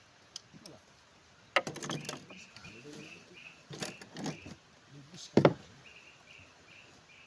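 A few sudden knocks and clatters, the loudest about five and a half seconds in, while a short high chirping call repeats about twice a second in the background.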